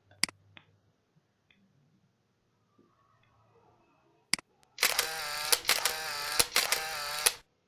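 Camera sound effect playing back: a loud stretch of about two and a half seconds with a steady whir and several sharp shutter clicks through it. Before it there are single sharp clicks, one near the start and one just before the effect begins.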